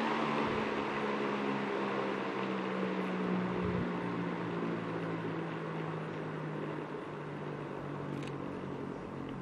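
Panasonic FV-40AFU 16-inch industrial exhaust fan spinning, with the rush of air from its blades and a motor hum. Both fade steadily and the hum sinks slightly in pitch as the fan slows. A faint tick comes about eight seconds in.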